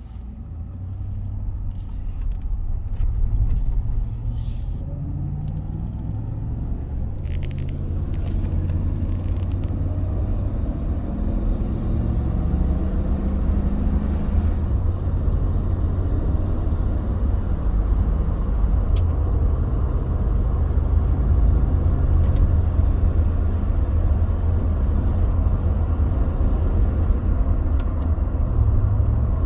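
2017 Chevy Tahoe V8 engine running with a steady low rumble, with scattered light ticks over it: the ticking noise the owner is recording.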